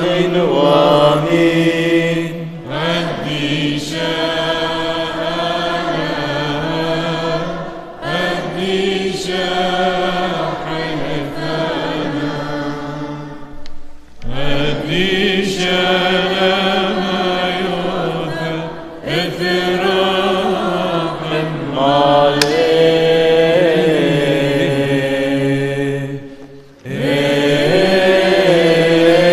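Chaldean liturgical chant: a voice sings a slow, ornamented melody in phrases a few seconds long, over a steady held low tone.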